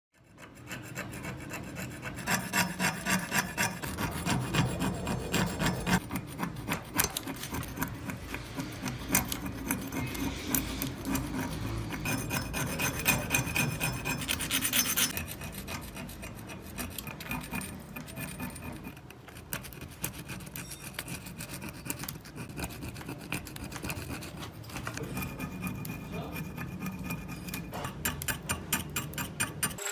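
Steel hand tool scraping rust off an old hatchet head, a rapid run of rasping metal-on-metal scrapes, a little louder in the first half.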